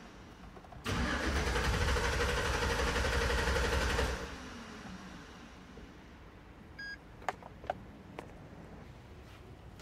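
2011 GMC Sierra engine being cranked for about three seconds, coming in suddenly and then stopping. Near the end comes a short electronic beep and a few sharp clicks.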